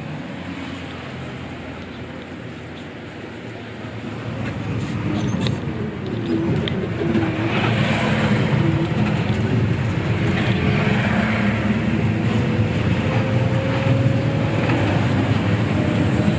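Hino RG bus's diesel engine and road noise heard from inside the cabin. It grows louder about four seconds in, and the engine note slowly rises.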